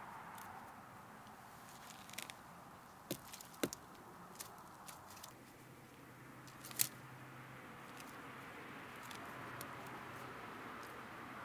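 Red onions being pulled up by hand from garden soil: scattered small clicks and snaps, the sharpest about two-thirds of the way in, over a faint steady background hiss.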